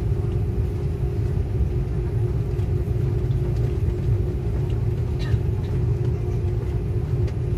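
Airliner cabin noise while taxiing: a steady low rumble with a constant engine hum over it, and a small click about five seconds in.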